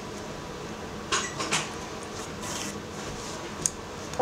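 Hand-sewing a cotton side cord onto a wool rug: the needle and thread are pulled through the wool, making a few short scratchy rasps, two of them a second or so in and a sharp tick near the end, over a steady room hum.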